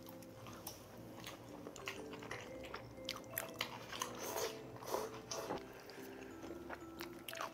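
Close-up eating sounds: repeated biting and chewing with short sharp clicks and smacks, over soft background music.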